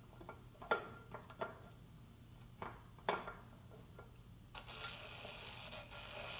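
Sharp metal clicks and taps of a screwdriver being worked into the shotgun's stock, about five over the first three seconds, then a steady rustling, scraping noise from about four and a half seconds in.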